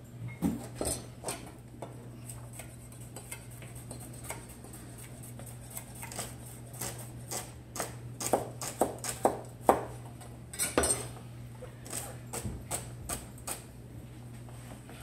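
Kitchen knives chopping carrot and celery on cutting boards: irregular sharp knocks, coming thicker and louder from about eight seconds in, over a steady low hum.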